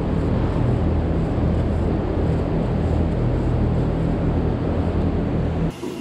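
Steady, loud, low machine drone with a hum in it, which cuts off abruptly near the end, leaving a quieter hum.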